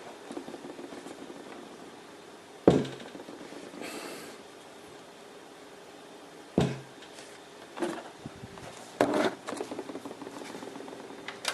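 A handful of sharp knocks and bumps from handling a heavy, partly built PC case, the loudest about three seconds in, over quiet room tone.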